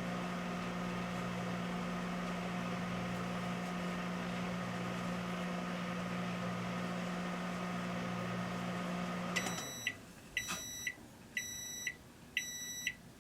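Microwave oven running with a steady hum, which stops about nine and a half seconds in; four short high beeps follow, about one a second, signalling the end of the cooking cycle.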